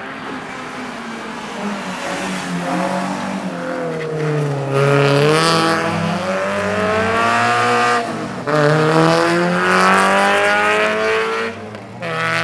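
Small hatchback rally car's engine revving hard through a corner and up the track. Its pitch climbs, drops sharply at a gear change about eight and a half seconds in, climbs again, and falls away near the end.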